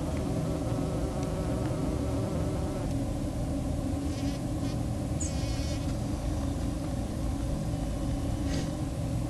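Buff-tailed bumblebee (Bombus terrestris) buzzing in flight as it works flowers, a steady low hum.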